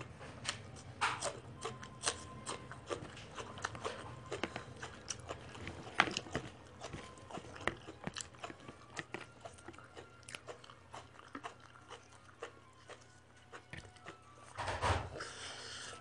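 A person chewing and crunching raw vegetables close to the microphone: a long run of small crisp crunches and mouth clicks. There is a louder burst of sound near the end.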